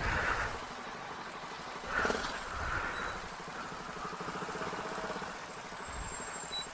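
Motorstar Cafe 400 motorcycle engine running at low revs while creeping through slow traffic, with a brief swell in level about two seconds in.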